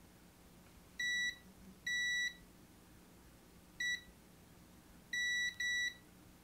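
Digital multimeter's continuity tester beeping five times, short high beeps of uneven length, the last two close together. The test probes are touching the pads of the HDMI line filters to check them for shorts, and each beep signals a closed, low-resistance path between the probes.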